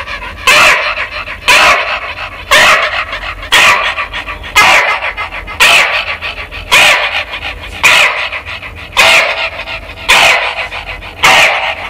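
A man imitating a house crow's caw with his voice, calling through cupped hands: a harsh call repeated about once a second, eleven times.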